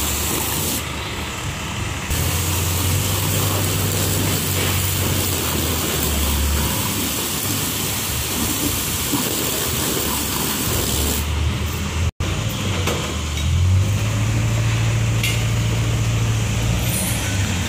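150-bar high-pressure washer spraying a jet of water onto a foam-covered scooter: a steady hiss of spray over a low, steady hum of the washer running. The sound drops out for an instant about twelve seconds in.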